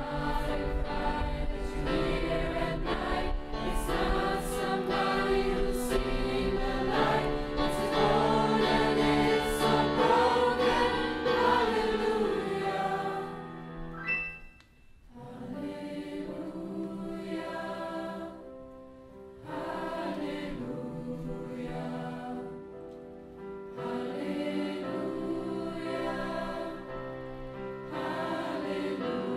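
Mixed school choir singing a Christmas song in parts, with sustained sung notes and a short break about halfway through between phrases.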